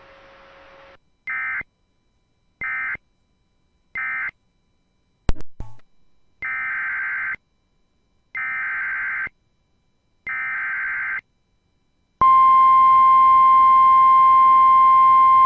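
Emergency Alert System data signalling on NOAA Weather Radio. First come three short SAME end-of-message bursts, then a click, then three longer buzzing SAME header bursts. About twelve seconds in, the loud, steady single-pitch 1050 Hz weather radio warning alarm tone starts.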